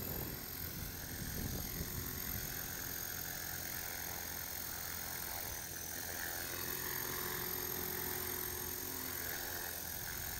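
Align T-Rex 450 electric RC helicopter flying low: a steady whine from its brushless motor and gears with the whir of the rotor blades, the pitch shifting slightly about six seconds in. The pilot blames the ESC for the motor changing speed now and then.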